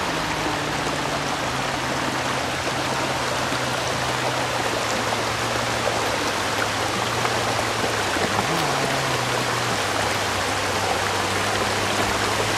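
Rushing river water over rapids: a steady, even hiss of flowing water, with a faint low hum underneath.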